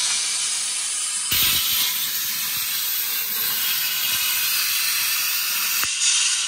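Primeweld Cut60 air plasma cutter cutting quarter-inch steel plate: the arc gives a steady, loud hiss as the CNC-driven torch moves along the cut. The hiss grows brighter about a second in and eases near the end.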